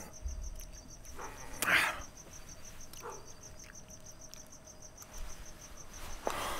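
Crickets chirping in a steady, fast pulse of about seven chirps a second over a faint steady hum, with a short rush of noise about two seconds in.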